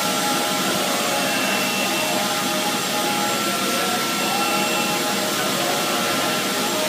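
Industrial machinery running steadily: a constant rushing, air-moving noise with a thin, unchanging high whine over it.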